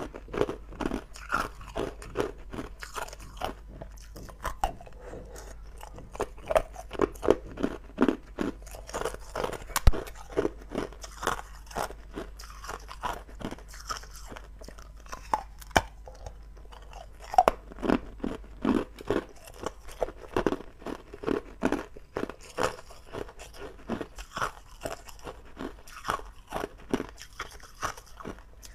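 Hard ice cubes being bitten and crunched between the teeth, close to the microphone: a continuous run of sharp, irregular crunches with chewing in between, one especially loud crack about ten seconds in.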